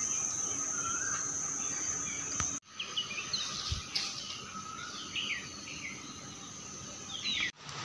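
Early-morning outdoor ambience: birds giving short chirps, mostly in the second half, over a steady high-pitched insect drone. The sound cuts out briefly twice.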